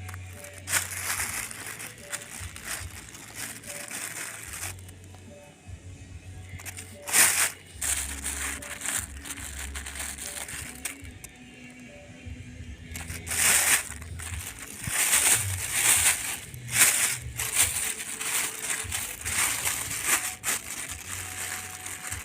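Background music with loud crackling, rustling noise over it in repeated bursts; the loudest bursts come about a third of the way in and again past the halfway point.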